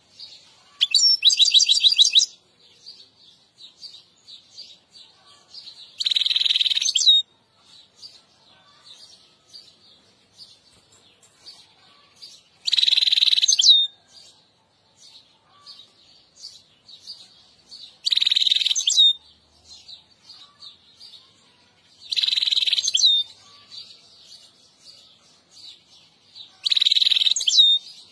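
European goldfinch singing: six short bursts of twittering song, each about a second long, every four to six seconds, with soft chirps between them.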